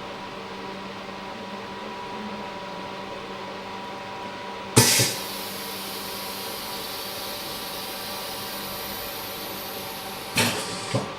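OCA vacuum laminator running with a steady hum. About five seconds in, a sudden loud burst of air hiss trails off over several seconds, typical of the chamber venting at the end of a laminating cycle. Two sharp knocks come near the end.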